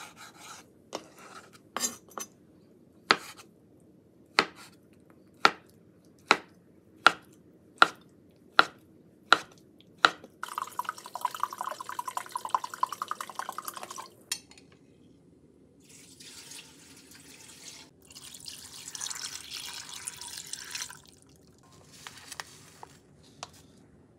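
Kitchen sounds from food preparation: a run of sharp taps or knocks, speeding up from about one a second to nearly two, then a few seconds of steady rustling noise, and later a softer stretch of hiss.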